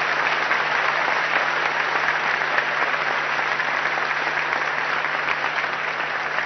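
Large audience applauding in a hall: dense, steady clapping that eases off slightly near the end.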